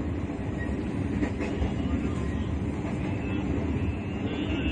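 Moving passenger train heard from inside the carriage: a steady rumble of the wheels running on the rails.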